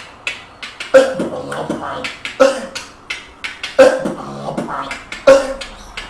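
Human beatboxing with no effects or processing: a steady beat of sharp mouth clicks and hissing hi-hat sounds, with a loud, deep voiced accent about every second and a half.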